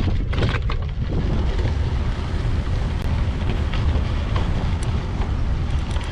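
Wind buffeting the microphone as a steady low rumble, with a few sharp clicks or rattles in the first second.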